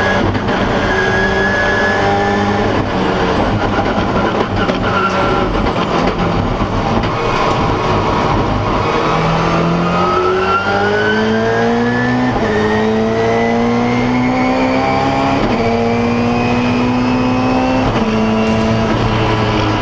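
Cabin sound of the Subaru-based Gobstopper II time-attack race car's turbocharged engine at speed, revs rising and falling through corners. In the second half it pulls hard with three quick upshifts.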